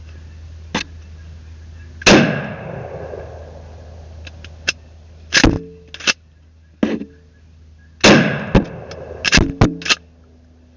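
Two gunshots about six seconds apart, each trailing off in a long echo. Sharp metallic clicks and clacks fall between and after them.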